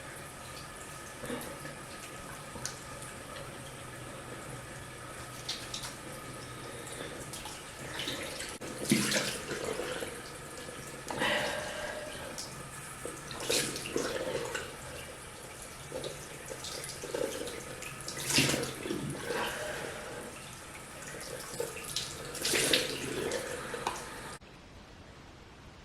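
Tap water running into a sink, with irregular splashing from about eight seconds in, as of hands scooping water to wash a face. The running water cuts off suddenly near the end.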